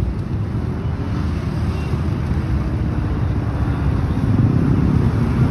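Motorcycle engines running, a steady low rumble that grows slightly louder toward the end.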